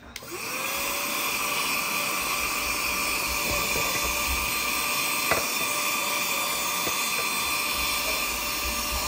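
Small handheld vacuum cleaner switched on, spinning up and running with a steady high whine while it sucks dust off a 3D printer's extruder.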